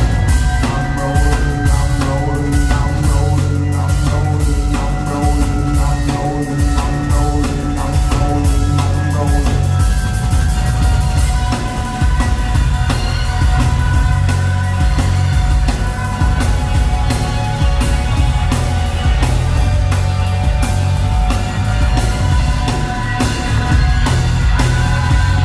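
Rock band playing live, with a busy drum kit and heavy bass driving a steady beat under sustained instrument notes.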